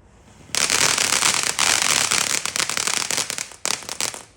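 Firework crackling: a dense, rapid stream of sharp pops that starts suddenly about half a second in, briefly dips, and cuts off near the end.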